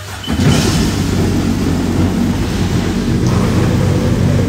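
Sea-Doo GTI personal watercraft engine starting about a quarter second in, then running steadily at idle.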